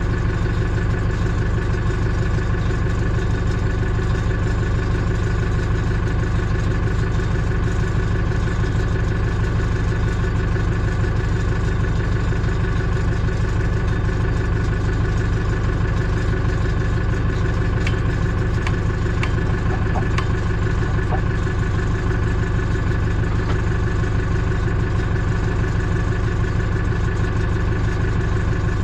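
A heavy machine's engine idling steadily at constant speed, with a few faint clicks in the second half.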